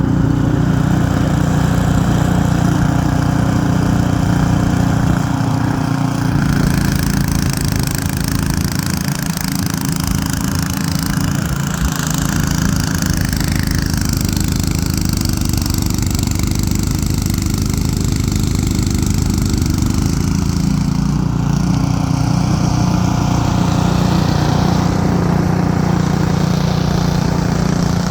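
Ariens 28-inch two-stage snowblower running steadily under load while working through wet, heavy snow. The engine note shifts about six seconds in and again a little past twenty seconds, with more hiss after the first change.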